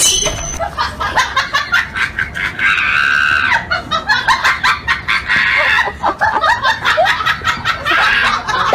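A woman shrieking and laughing in quick high bursts, with one long held scream about three seconds in.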